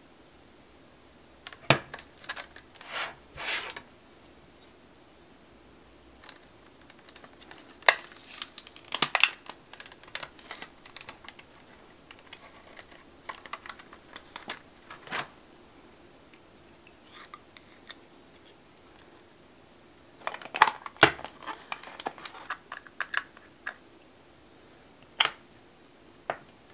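Scattered clicks and taps of long fingernails and hard plastic parts being handled while a nail-stamper kit is unpacked, with a short burst of plastic packaging crinkling about eight seconds in.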